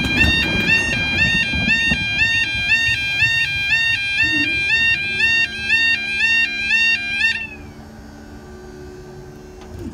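Level crossing yodel alarms sounding their repeating two-tone warble about twice a second, over the fading rumble of a passing train; the alarms cut off suddenly about seven seconds in. A steady low hum from the barrier mechanism runs through the second half as the barriers rise.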